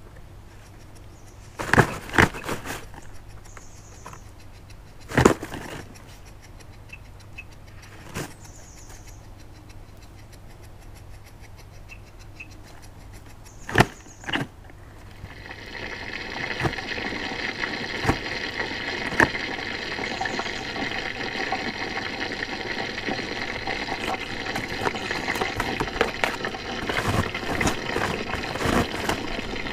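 Scattered sharp knocks and rustles of cardboard and packing as an Arctic fox noses and bumps into a box stuffed with shredded packing. About halfway through, a steady hiss sets in with crackling over it.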